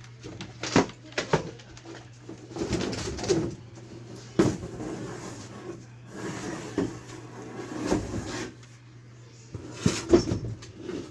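Scattered sharp knocks and stretches of scraping from hand carpentry work on wood, over a steady low hum.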